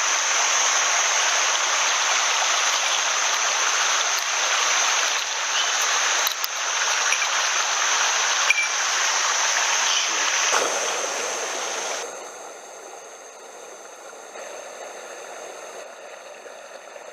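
Small mountain headwater stream rushing over rocks, a steady hiss of running water; about twelve seconds in it drops to a much softer level.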